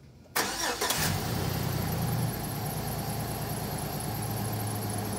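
GMC pickup truck's engine started: a brief crank, then it catches and runs at raised revs before settling to a steady idle about two seconds in.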